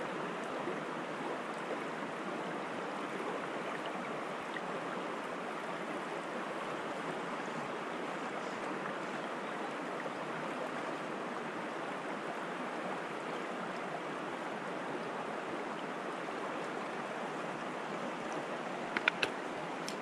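Shallow mountain stream running steadily over a stony bed, with a few short clicks near the end.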